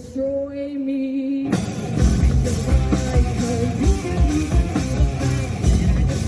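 Live rock band with guitars, drums and singing. A held note rings first; about a second and a half in, the drums and full band come in with a driving beat.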